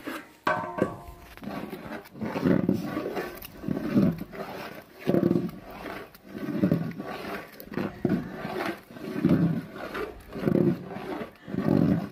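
Large aluminium biryani pot: its metal lid clanks with a brief ring about half a second in as it is lifted off, then a long stirring rod is worked through the steaming rice and chicken, each stroke a low scraping rumble, about one every second and a half.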